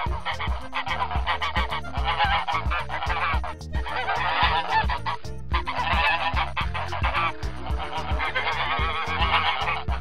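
A flock of geese honking continuously, many calls overlapping, with two brief lulls around the middle.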